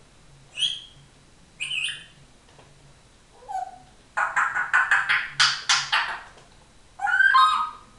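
African grey parrot calling: a few short whistles, then a rapid harsh run of about five clicking squawks a second for two seconds, then a warbling whistle near the end.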